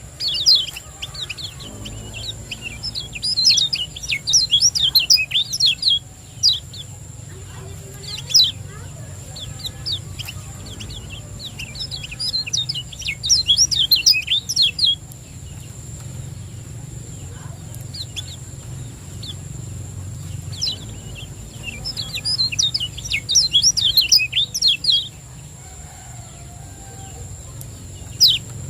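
Kecial kuning (a Lombok white-eye) singing in rapid bouts of sharp, high chirps, each bout lasting a few seconds, with short pauses between them. A steady low hum and a faint thin high whine run underneath.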